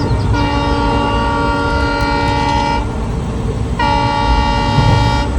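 Train horn sounding two long blasts, the first about two and a half seconds long, the second about a second and a half, over a steady low rumble.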